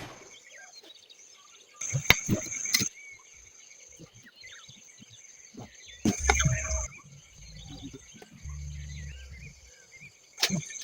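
A few sharp knocks and taps, scattered across several seconds, over a steady faint high-pitched background tone.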